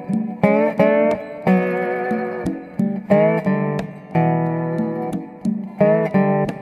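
Background music: acoustic guitar playing a run of plucked and strummed chords, some notes bending into pitch, with no singing.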